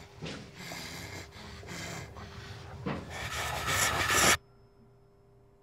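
Horror short film soundtrack playing back: a harsh rush of noise that grows louder, then cuts off abruptly about four seconds in, leaving only a faint hum.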